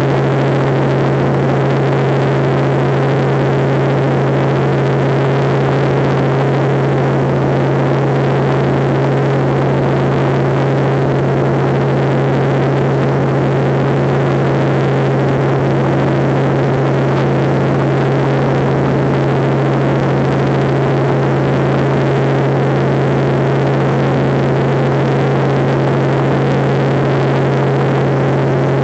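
Helicopter in flight heard from inside the cabin: a loud, steady drone of rotor and engine, a constant low hum under an even rushing noise.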